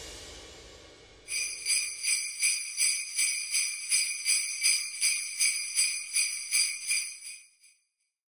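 The tail of music fades out in the first second, then jingle bells are shaken in a steady rhythm of nearly three shakes a second for about six seconds before dying away.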